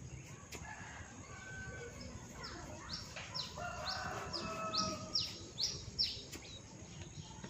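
Birds calling, with a chicken clucking. Midway there is a run of about eight quick falling notes, roughly two a second, that are the loudest part.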